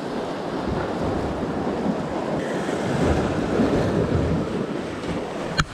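Surf washing and breaking against the rocks of a jetty, with wind buffeting the microphone. A single sharp click near the end.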